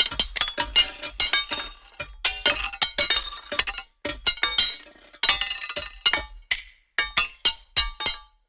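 Metal banging against rocks: an irregular run of sharp clanking strikes, several a second, each with a bright metallic ring, stopping about eight seconds in.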